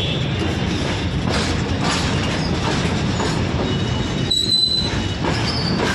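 Freight train's box wagons rolling past close by, a steady rumble and rattle of steel wheels on the rails, with a brief high wheel squeal about four seconds in.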